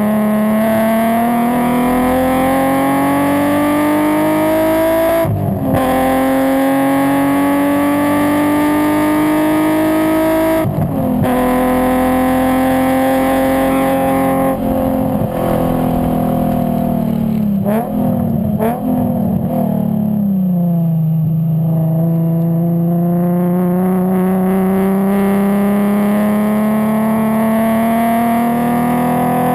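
Nissan 350Z's 3.5-litre VQ35 V6 at full throttle. The revs climb steadily and drop sharply at two upshifts, about five and eleven seconds in. After that the engine comes off the power and the pitch falls through downshifts, with two short throttle blips near the eighteen- and nineteen-second marks. In the last eight seconds it pulls hard again, the revs rising steadily.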